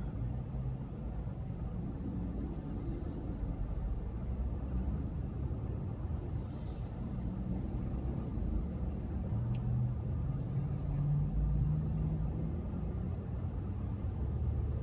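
Backhoe's diesel engine running steadily with a low rumble while digging soil, its hum growing stronger for a couple of seconds about two-thirds of the way in. A single faint click near the middle.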